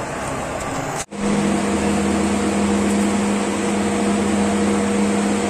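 Steady hum of workshop machinery: a low drone with a higher tone above it over a noisy background. It cuts in suddenly after a brief break about a second in, and is quieter, plain background noise before that.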